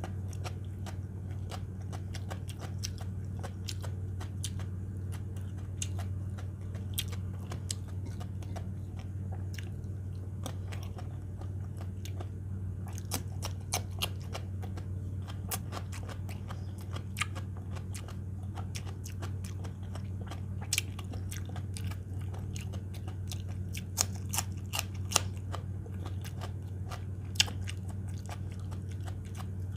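Close-up chewing and biting of raw salad vegetables: irregular crisp crunches and wet mouth clicks, more frequent in the second half, over a steady low hum.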